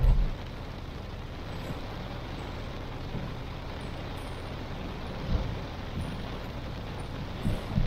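Heavy rain falling on a moving car, with steady rain and road noise. Brief low thumps come at the very start, about five seconds in and just before the end.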